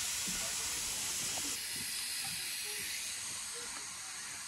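Steam locomotive standing at a platform with steam hissing steadily from it; the high hiss eases a little about a second and a half in.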